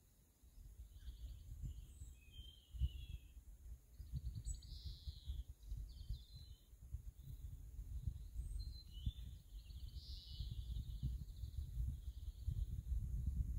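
Wind rumbling on the microphone in uneven gusts, with birds singing in three short spells of chirping phrases.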